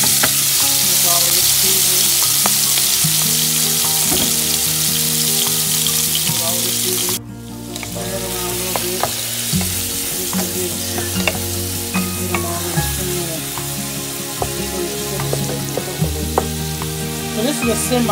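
Raw shrimp sizzling in olive oil in a nonstick frying pan as they start to sauté, stirred with a wooden spatula that clicks and taps against the pan. The sizzle drops abruptly about seven seconds in and carries on softer.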